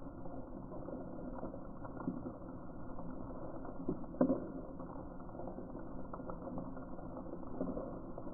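Muffled underwater ambience picked up through a camera's waterproof housing: a steady dull wash with scattered faint clicks, and one sharper click about four seconds in.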